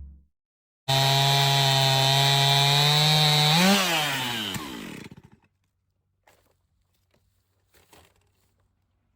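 Stihl chainsaw on an Alaskan chainsaw mill running steadily under load while ripping a board. About four seconds in it revs up briefly as it comes free of the cut, then winds down and stops.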